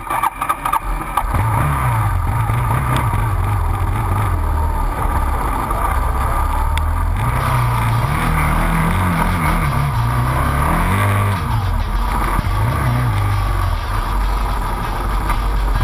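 ATV engine running under way, its pitch rising and falling several times as the throttle is opened and eased off.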